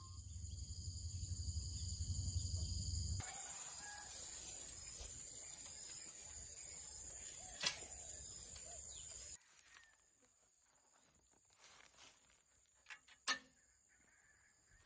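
Village yard ambience with chickens calling over a steady high-pitched hum. A low rumble fills the first three seconds, and a couple of sharp clicks stand out, one near the middle and one near the end.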